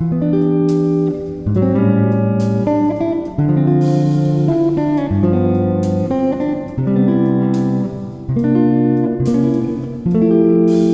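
Background music led by a strummed guitar, with chords changing about every second.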